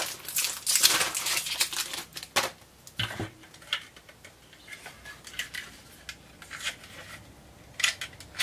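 Toy packaging rustling and crinkling as items are handled and unpacked, dense for the first two seconds, then scattered short rustles and light clicks, with a dull knock about three seconds in.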